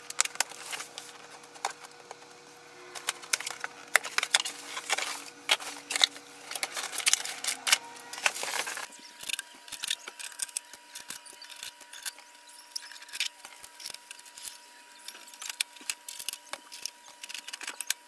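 Unboxing a printer by hand: scissors cutting packing tape on a cardboard box, then cardboard and packing material being handled, a dense run of clicks, scrapes and rustles. About nine seconds in the handling becomes lighter and sparser as the tape-covered printer is handled.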